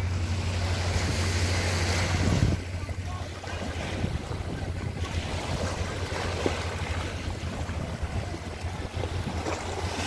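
Small sea waves washing onto the shore, with wind rumbling on the microphone; the wind rumble is heavier for the first two and a half seconds, then drops away.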